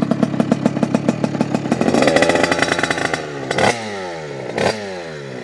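Rieju MRT Pro 50's Minarelli AM6 two-stroke engine with a Stage6 twin-outlet exhaust, revved by hand while the bike stands still: the revs climb to a peak about two seconds in, then the throttle is blipped twice near the end, the revs falling away after each blip.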